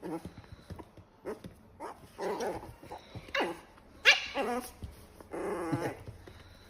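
Small dog, a miniature pinscher, giving several short barks and growls spread over a few seconds.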